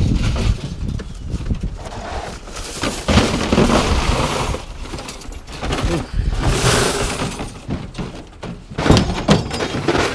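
Scrap metal being unloaded by hand onto a pile: repeated irregular clangs and crashes of steel and tin striking metal.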